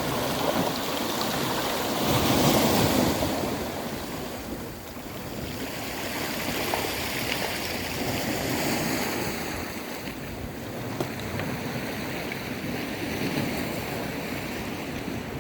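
Sea waves washing onto a pebble beach, with one louder surge of surf about two seconds in and faint rattling clicks of rolling pebbles. Wind buffets the microphone.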